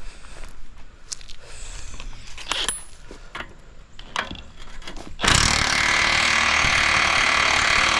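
Light clinks and knocks of tools on metal, then about five seconds in a power tool starts abruptly and runs steadily and loudly on the truck's frame hardware.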